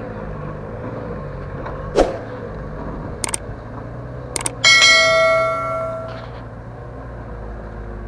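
Subscribe-button sound effect: a few sharp clicks, then a bell ding that rings out and fades over about a second and a half. A truck engine runs low in the background.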